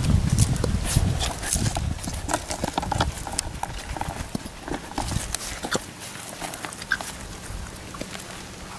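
Labrador retriever puppies scampering and scuffling on dry dirt and grass, making a patter of irregular paw taps and rustles. Low wind rumble on the microphone fades after the first couple of seconds.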